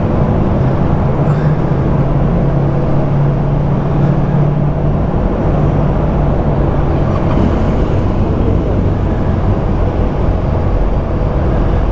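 A vehicle engine running steadily: a continuous low rumble with a drone that grows stronger about two seconds in and eases off again a few seconds later.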